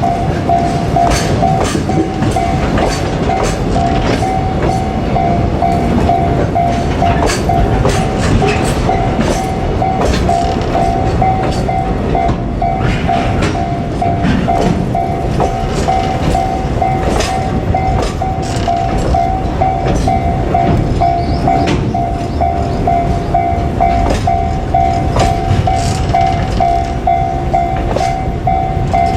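Japanese level-crossing alarm ringing a steady, evenly repeating two-tone ding while a freight train rolls past, its wheels rumbling and clicking over the rail joints.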